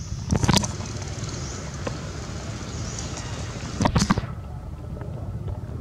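Wind buffeting the microphone in a steady low rumble, with two short, loud crackling bursts, about half a second in and again about four seconds in.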